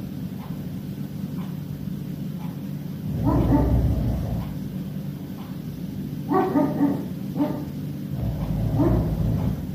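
A dog vocalizing in short pitched bouts, yips and whimpers, four times, over a steady low drone that swells and fades.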